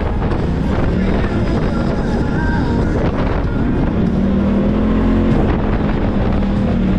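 Side-by-side UTV engine running steadily at low trail speed, its pitch holding and wavering a little, with wind on the microphone and occasional knocks and rattles from the vehicle over the rough sand trail.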